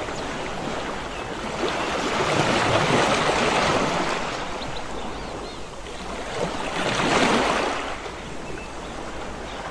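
Sea surf: a rushing wash of waves that swells up twice and falls back.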